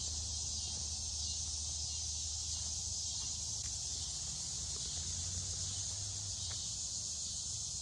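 Steady chorus of summer insects in woodland, an unbroken high-pitched buzzing drone with a low rumble underneath.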